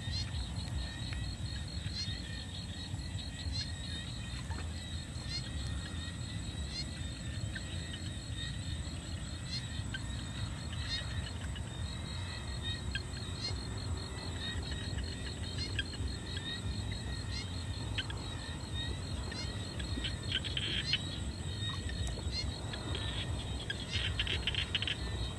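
Night-time outdoor ambience: a steady, fast-pulsing high trill of night insects over a low rumble, with a few clicks and rustles near the end.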